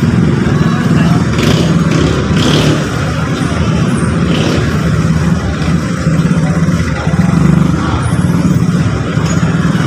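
A vehicle engine running steadily, its low hum swelling and fading slightly, with a few faint clicks in the first few seconds.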